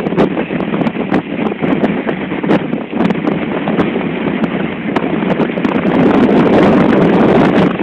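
Strong wind buffeting the microphone, with the rush of heavy seas breaking along a bulk carrier's hull. It stays loud throughout, dipping briefly about three seconds in and loudest toward the end.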